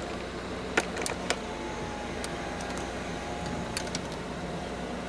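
Chevrolet Camaro convertible's power soft top lowering: a steady electric motor whir, with a few sharp clicks about a second in and again near four seconds as the top frame folds.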